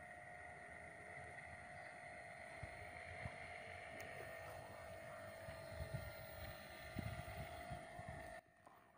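Homemade RC airboat's electric motor and air propeller running with a steady faint whine as it crosses the water, with gusts of wind on the microphone. The sound drops away sharply about eight seconds in.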